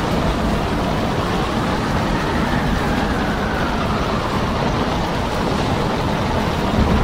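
Gale-force storm wind at sea, a steady loud rush with heavy rumbling buffeting on the microphone. A faint whistle slowly falls away in the middle.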